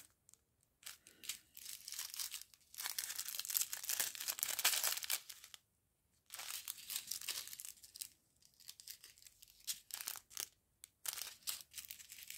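Thin plastic sachets of round diamond-painting drills crinkling and rustling as they are picked up and handled, in irregular bursts with short pauses.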